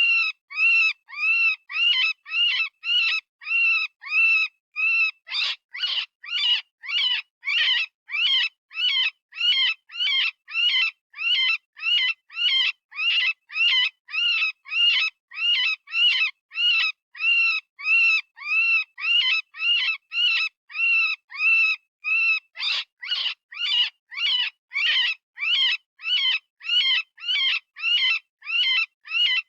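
Software-generated rabbit distress call, the screaming sound used to lure predators: a steady run of short, high-pitched squealing cries, about two a second, each rising and then falling in pitch. A few harsher cries come about five seconds in and again about twenty-two seconds in.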